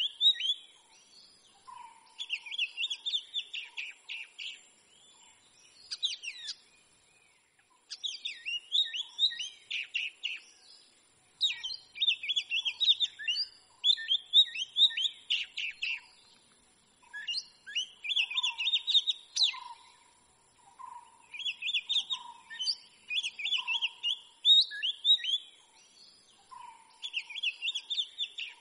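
Oriental magpie-robin singing: repeated phrases of quick, varied whistled notes, each a second or two long with short pauses between, and fainter lower notes in the gaps.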